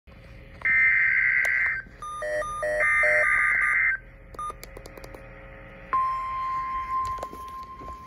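Weather alert radio receiving a NOAA Weather Radio alert for a severe thunderstorm watch: two bursts of the warbling SAME data tones, with a quick run of the receiver's beeps between them, then about six seconds in the steady single-pitch 1050 Hz warning alarm tone starts.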